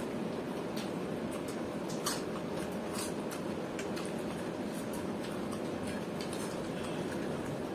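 Eating with bare hands from steel plates: fingers mixing watery rice, with scattered faint clicks and scrapes on the metal (the sharpest about two seconds in), over a steady low background hum.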